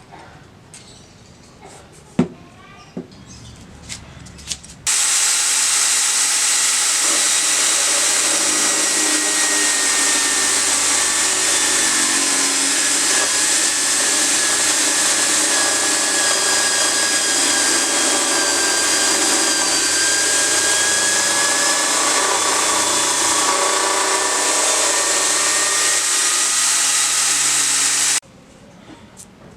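A power tool running on metal workpiece for over twenty seconds, a loud steady noise with a faint whine, starting and cutting off abruptly, after a few light clicks.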